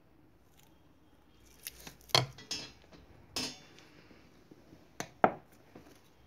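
Glass dessert bowls knocking and clinking on a kitchen counter as a filled bowl is lifted and moved aside. There are about six short, sharp knocks, starting about a second and a half in, with the loudest near two seconds.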